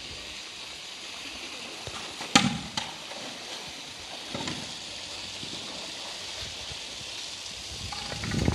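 Polar bear splashing in a pool while playing with a ball: one sharp splash about two and a half seconds in, then a few smaller ones, over a steady hiss. Near the end water sloshes and streams off as the bear climbs out onto the pool steps.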